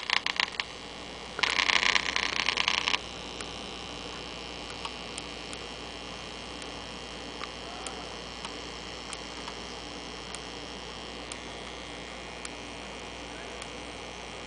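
Silvertone tube radio's speaker putting out static with the volume turned up: a loud crackling burst at the start and again from about a second and a half to three seconds in, then a steady hiss with a low hum and scattered faint clicks. The set is not pulling in a station, which the owner suspects is down to another bad tube.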